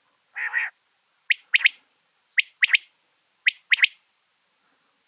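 Quail song: a short rough note, then three quick phrases of three sharp, clipped notes each, about a second apart.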